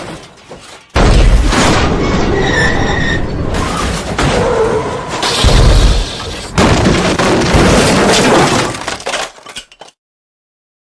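Car-crash sound effect: a heavy impact about a second in, then smashing and shattering glass, with more heavy hits about five and a half and six and a half seconds in, dying away near the end.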